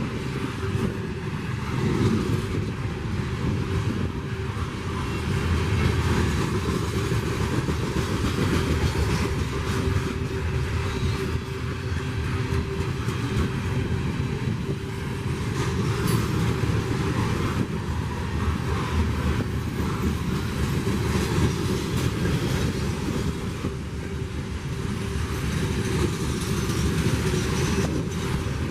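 Freight train rolling past: a steady rumble of wheels on rail that carries on unbroken, with a faint steady tone running through it.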